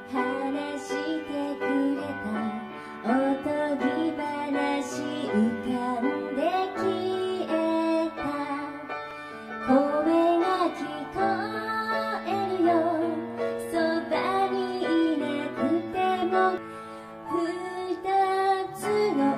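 A woman singing a song live into a handheld microphone, her voice sliding and wavering in pitch, over steady instrumental accompaniment.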